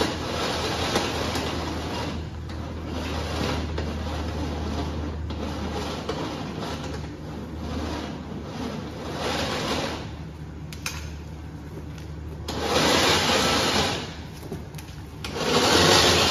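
Synthetic winch rope being pulled by hand off a UTV's winch: a steady low hum at first, then scraping and two loud hissing rasps of about a second each near the end.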